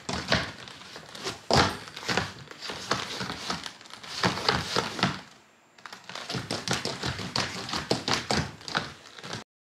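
Footsteps of chunky rubber-soled sandals with tractor-tyre-style treads on a laminate wood floor: a quick, uneven run of taps and thuds as she steps and shuffles in place. There is a short lull about halfway, and the sound cuts off suddenly just before the end.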